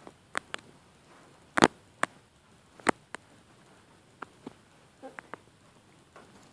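A scattering of about a dozen short, sharp clicks and taps at irregular intervals, the loudest about a second and a half in, over a quiet room.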